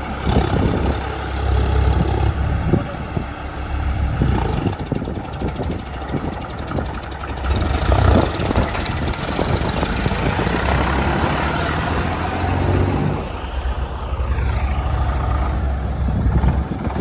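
Heavy diesel engines of an excavator and a tractor running during sand loading, rising and easing as the machine works, with a few knocks.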